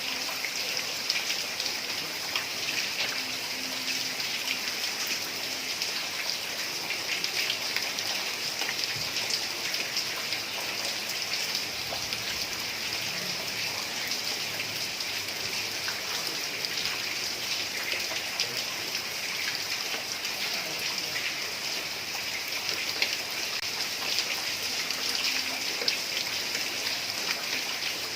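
Heavy rain pattering steadily on a tiled roof, a dense even hiss of countless drops.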